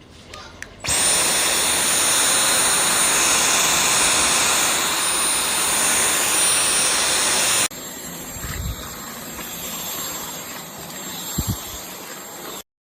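Dyson V12 Detect Slim cordless stick vacuum running, with a high whine over the rush of air. The whine sweeps up as the motor spins up about a second in. A little past halfway it drops abruptly to a quieter, lower run, with a couple of low bumps near the end.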